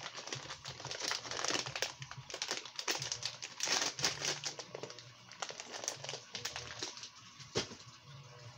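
Plastic fishing-bait packaging crinkling and rustling as it is handled, with irregular clicks; a louder crinkle about four seconds in and a sharp click near the end.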